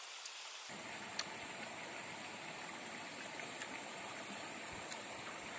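Steady outdoor background hiss, like distant running water, with a couple of faint clicks from eating rice and omelette by hand.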